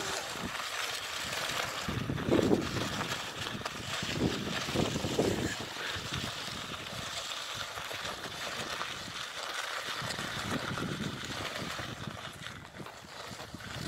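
Plastic crate dragged and pushed across gravelly sand, a steady gritty scraping, with a few short low rumbles a couple of seconds apart.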